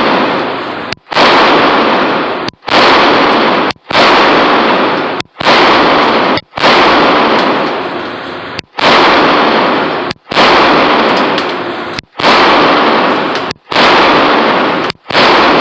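Walther PPQ pistol fired in a steady string of about ten shots, one every second and a half or so. Each sharp report rings on in the indoor range's echo until the next.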